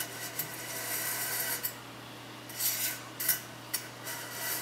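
Fingers scraping and rubbing small metal screws and parts along the grooves of an aluminium heatsink, with a few light metallic clicks. There is a stretch of scraping at first, then short scrapes and ticks in the second half.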